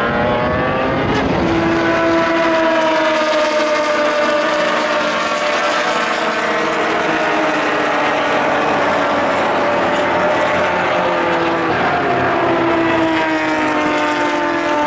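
A field of production-based sports race cars at full throttle just after the race start, many engines running together in a loud drone. The engine notes climb in pitch and drop at upshifts, about a second in and again about twelve seconds in, then climb again near the end.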